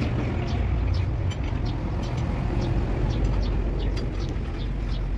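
Irregular light clicks of an open-end spanner working nuts on the studs of a Fiat 480 tractor's service plate, over a steady low mechanical drone.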